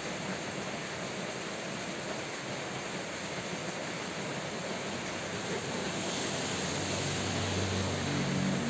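Steady rain falling, an even hiss with no breaks. A low hum comes in about seven seconds in.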